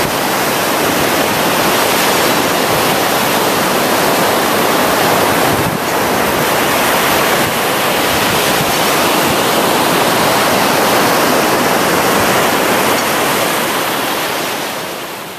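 Ocean surf washing steadily onto the beach, a continuous rush of waves that fades out near the end.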